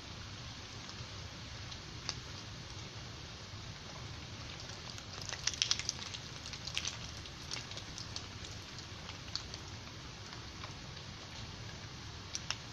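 Steady rain hiss, with scattered sharp ticks of close drops that bunch together in the middle and again near the end.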